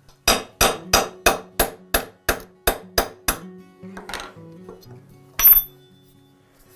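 Small hammer striking a pin punch set against the metal frame of a Millers Falls eggbeater hand drill: about ten sharp metallic taps, roughly three a second, then a pause and one harder strike that rings.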